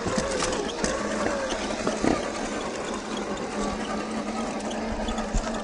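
Axial SCX10 II RC crawler's 550 21-turn brushed electric motor and gear train whining. The pitch wavers in the first couple of seconds, then settles into a steady hum, with scattered small clicks of the tyres on stones.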